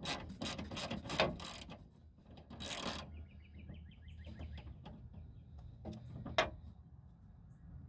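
Ratchet wrench with a 10 mm socket tightening the nuts that hold the door glass to the window regulator: a rapid, even run of pawl clicks in the middle, with handling knocks around it and one sharp click near the end.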